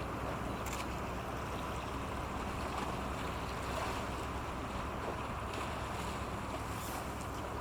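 A patrol boat's engines running steadily as it moves through the water, with the wash of water from its hull.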